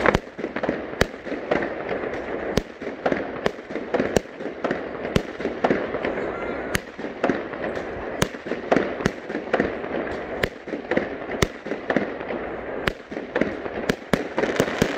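Aerial fireworks bursting overhead: a rapid, irregular series of sharp bangs, several a second, over a steady background rumble of more distant fireworks.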